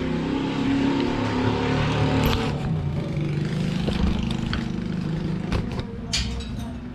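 A motor vehicle's engine running steadily, fading toward the end, with a few sharp clicks and knocks, the sharpest near the end as a wrought-iron security gate is unlatched.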